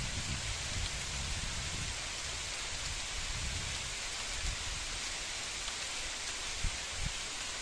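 Heavy rain pouring down steadily, with a few soft thumps of heavier drops near the end.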